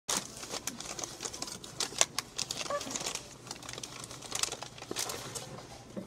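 Paper takeout bag rustling and crinkling as it is handled, a quick, irregular run of sharp crackles.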